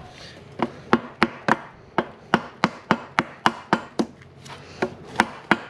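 Dead blow hammer tapping a rubber grease seal into the steel bearing carrier bore, about three to four sharp blows a second with a short pause about two seconds in. The seal is going in crooked and is being worked in with repeated light taps.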